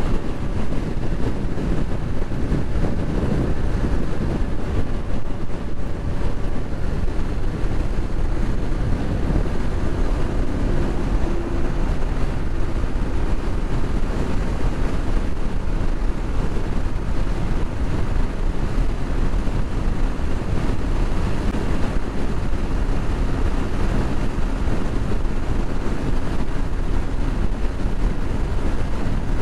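Yamaha XTZ 150's air-cooled single-cylinder engine held at full throttle, pinned near 8000 rpm at its roughly 114 km/h top speed, under loud steady wind rush on the microphone.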